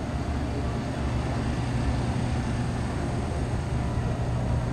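Steady background hum and hiss of a grocery store interior, with a constant low electrical hum from the aisle of glass-door refrigerated display cases.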